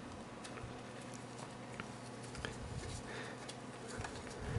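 Faint handling noise: scattered small clicks and rubbing as a white plastic ear-pad ring is pressed and worked into a pleather headphone ear pad, with one slightly louder tick near the end.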